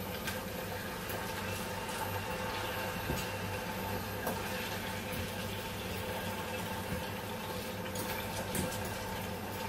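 Potato slices frying in hot oil in a pan, a steady sizzle with faint crackles, over a steady low hum.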